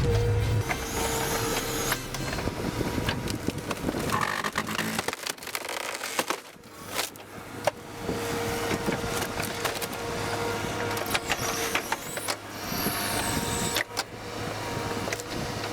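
Engine-driven wood-processing machine running steadily, with a steady whine that comes and goes and scattered sharp knocks and cracks.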